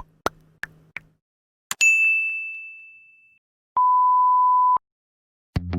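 Edited intro sound effects: a few quick clicks, then a bright bell-like ding that rings out and fades over about a second and a half, then a flat one-second beep. Music begins right at the end.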